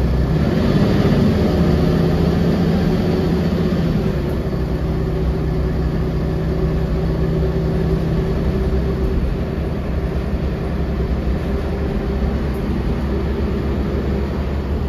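Volvo B10L bus's rear-mounted diesel engine running, heard from inside the passenger cabin. It is a steady engine hum whose low note eases off a little about nine seconds in.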